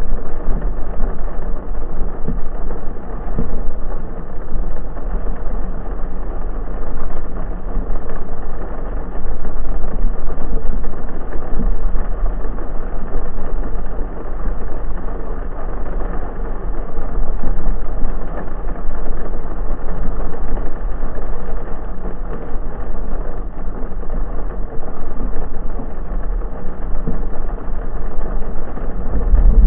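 Blazer driving through a heavy rainstorm, heard from inside the cabin: a steady rush of rain and tyre noise over a deep, constant rumble.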